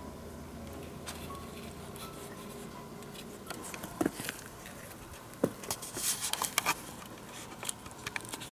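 Faint background music fading out in the first second, then a run of sharp clicks, taps and rustles, loudest between about four and seven seconds in; everything cuts off suddenly just before the end.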